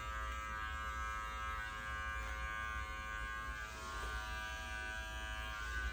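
Electric dog-grooming clippers fitted with a #15 blade, running with a steady hum as they shave a puppy's throat and cheeks against the grain.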